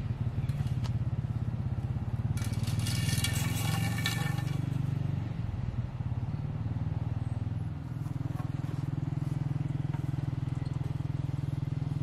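Galvanized welded-wire cage mesh rattling and scraping as a panel is handled, loudest in a burst about two and a half seconds in that lasts some two seconds. Under it, a steady low engine-like drone.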